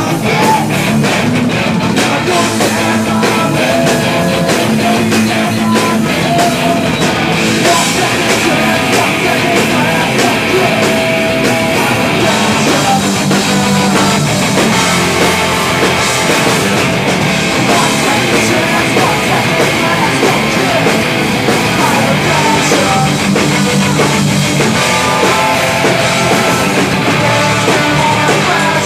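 A rock band playing loud and fast, with electric guitars and a drum kit and brass from trombone and trumpet.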